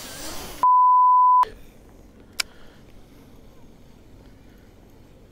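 A censor bleep: one steady, high beep just under a second long, about half a second in, with all other sound cut out while it plays. Just before it, a short rustle of a jacket sleeve brushing the camera.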